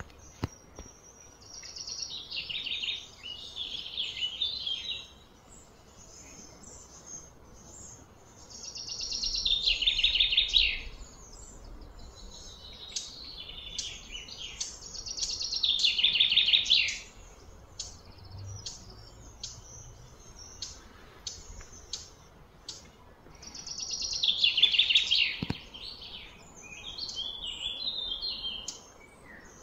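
Songbirds calling: a loud trilled phrase of about two seconds every six to eight seconds, with softer chirps in between.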